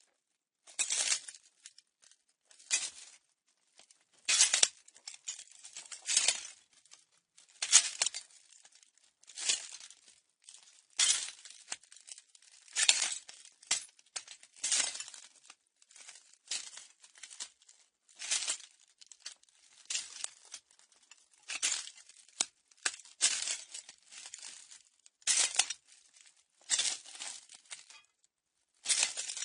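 Footsteps walking slowly over broken glass: each step gives a crunch with shards clinking, one step about every one to two seconds.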